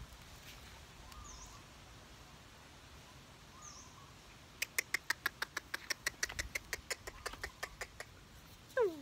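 Animal calls: two brief high chirps, then a rapid run of sharp chirping clicks, about seven a second for over three seconds. Just before the end comes a short squeal that falls steeply in pitch.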